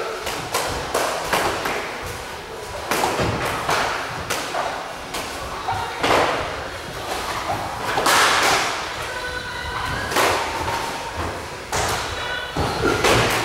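Gloved punches and kicks landing in light kickboxing sparring: irregular thuds and slaps, with a ring of reverberation from a large hall.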